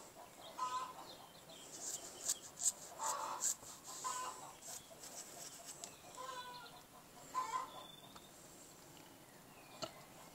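Chickens calling: about six short calls, most of them in the first half, with a few sharp clicks among them.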